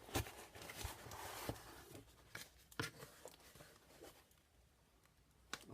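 Faint rustling of packaging being handled and opened, with a few small clicks and taps; it goes quieter about three and a half seconds in.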